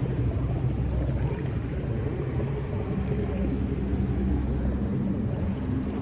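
A low, steady droning rumble with a few held deep tones coming and going.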